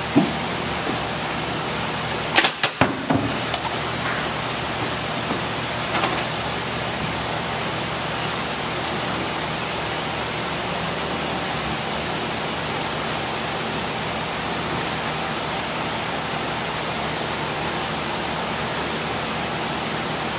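Steady background hiss, with a quick run of four or five sharp knocks about two and a half seconds in, each fainter than the last, like a cardboard box dropped onto a floor plate and bouncing; one more light knock a few seconds later.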